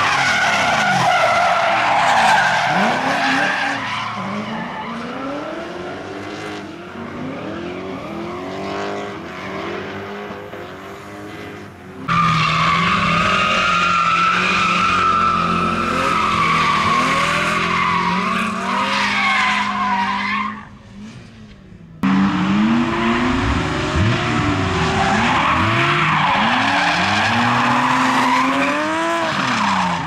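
Drift cars, BMW 3 Series among them, sliding sideways: engines revving up and down and tyres squealing under wheelspin. The sound changes abruptly twice, about twelve and twenty-two seconds in.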